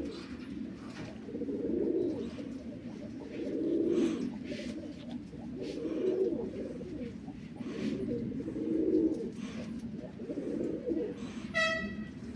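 Domestic pigeons cooing: low rolling coos that swell and fade about every two seconds, with one brief high squeak near the end.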